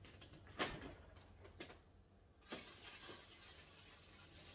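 Faint room sound with two soft knocks, then a refrigerator door pulled open about two and a half seconds in, its seal letting go with a soft rush.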